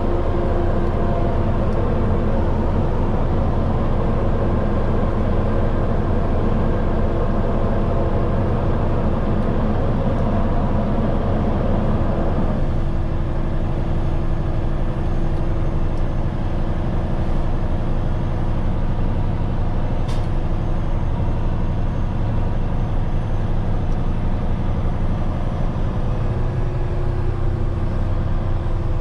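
Heavy rotator tow truck's diesel engine running steadily, easing off to a quieter note about twelve seconds in. A single sharp click about twenty seconds in.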